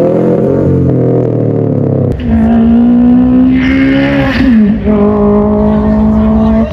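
A Subaru WRX's flat-four exhaust revving, rising in pitch then falling away, for about the first two seconds. Then a man imitates a car engine with his mouth into a microphone, holding a steady buzzing engine note that dips and breaks about two thirds of the way through before settling again.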